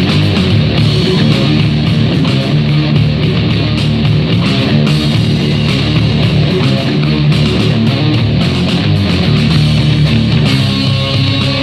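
Rock music with electric guitar playing loudly from a Zoook Rocker Armor XL Bluetooth speaker during a sound test. The music changes section near the end.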